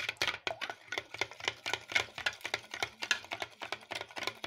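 Three raw eggs being beaten by hand in a plastic bowl, the utensil clicking against the bowl in quick strokes, about five or six a second.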